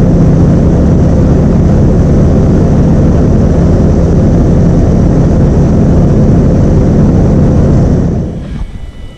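Alpi Pioneer 300's engine and propeller running steadily in flight, heard from inside the cockpit; the sound fades away about eight seconds in.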